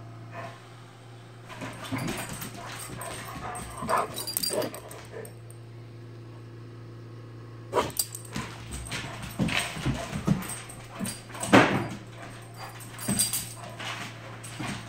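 A bullmastiff and a puppy playing: yips, whimpers and short barks mixed with scuffling and claws on a hardwood floor, in two bursts with a lull between, the loudest near the end.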